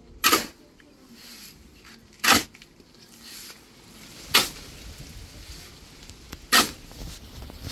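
Four sharp, loud blows from a hand tool striking at an even working pace, about two seconds apart.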